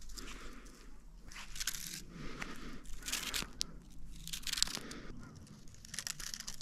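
Footsteps in sandals on dry sand, an irregular crunching and scraping about once or twice a second.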